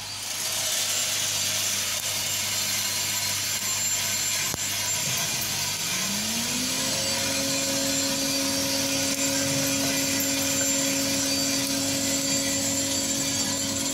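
Freshly roasted coffee beans pouring out of a drum roaster into its cooling tray, a steady rushing rattle, while the tray's rotating stirring arms churn through them. About five seconds in, a motor hum rises in pitch and then holds steady.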